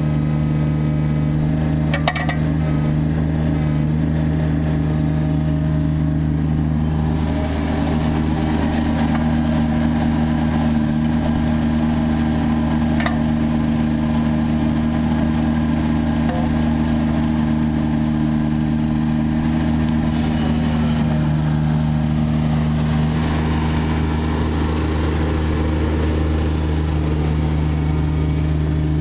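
The three-cylinder diesel engine of a 2006 Takeuchi TB016 compact excavator running steadily at a constant speed. A lighter rushing noise comes and goes over it, with a couple of brief clicks.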